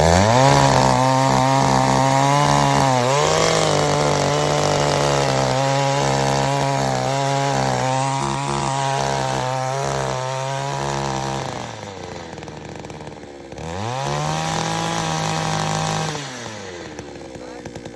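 Kawano mini tiller's small petrol engine revved up hard at once and held at high speed for about eleven seconds, then dropped back to idle. It is revved again for a couple of seconds near the end and falls back to idle.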